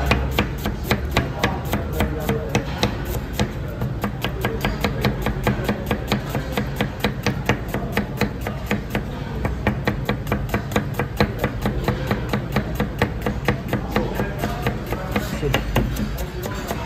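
A knife chopping rapidly and evenly on a cutting board, about four to five strokes a second without a break.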